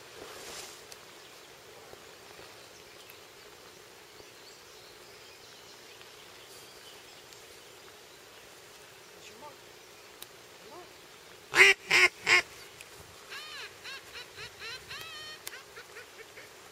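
Duck call blown in three loud quacks in quick succession, then a run of about eight quicker, quieter quacks over the next couple of seconds.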